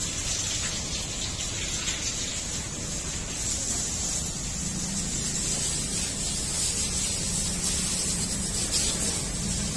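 Steady hiss of water spraying from a hose and splashing onto an animal's back and the wet floor.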